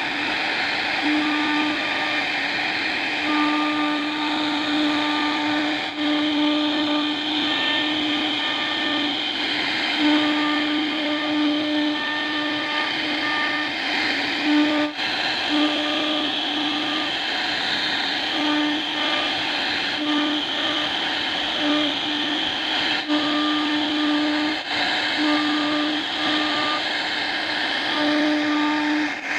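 CNC router carving wood: a steady spindle-and-cutting hiss runs under a fixed-pitch motor whine that keeps starting and stopping every second or so as the machine's axes move.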